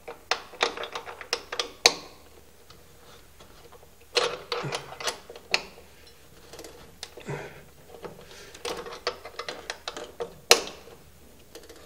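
Irregular clicks and light knocks of cables and metal terminals being handled as wire ends are worked into a screw-terminal distribution block inside an electrical panel. They come in clusters with short pauses, with one sharper click near the end.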